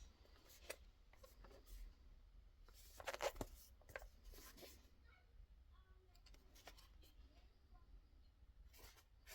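Near silence with faint handling sounds: a few soft taps and rustles of a small cardboard box and its packaging, the clearest about three seconds in.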